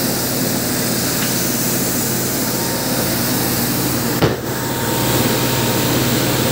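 Automatic carpet-washing machine running: a steady motor hum with a fast low pulsing from the rotating brushes, and a hiss of water spraying from the spray bar onto the rug. A single sharp knock sounds about four seconds in.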